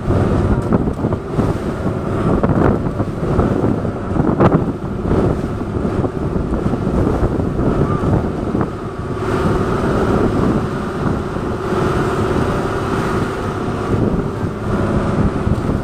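Small motorboat's engine running steadily under way, with wind buffeting the microphone and water rushing past.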